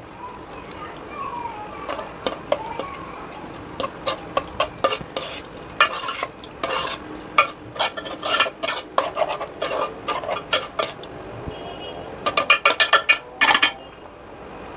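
A utensil stirring paneer cubes into simmering pea-and-tomato gravy in a pan, clicking and scraping against the pan over a steady low sizzle. Near the end comes a quick run of taps on the pan.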